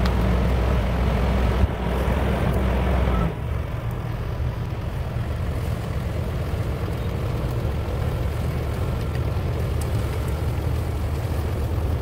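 Ford medium-duty chip truck's engine running steadily while its hydraulic hoist tilts the dump box up to unload woodchips. The engine is louder, with a deeper hum, for the first three seconds or so, then settles a little quieter and steady.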